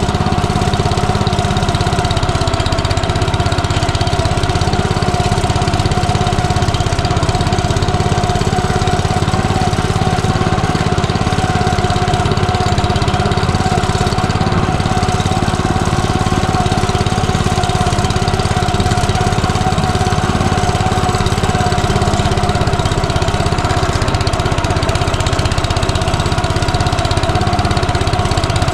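Walk-behind tractor (motoblock) engine running steadily at an even speed, with a constant whine over its low rumble.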